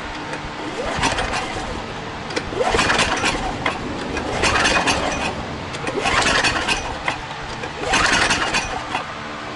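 Small overhead-valve generator engine cranked with its recoil pull-starter in about five separate pulls, turning over without catching. This engine has only about 30 psi of compression.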